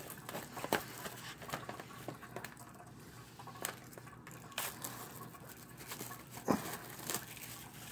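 Plastic shrink wrap being picked at and peeled off a DVD case: faint crinkling with scattered small clicks.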